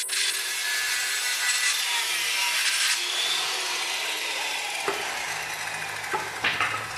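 Modern M-2600L 700-watt circular saw running and cutting through wood, the motor's whine sinking slowly in pitch. A few sharp knocks come near the end.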